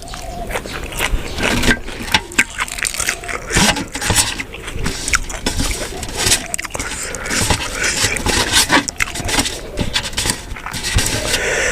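Close-miked, loud chewing of buffalo-meat larb: a dense, irregular run of wet mouth clicks, crunches and smacks with no pause.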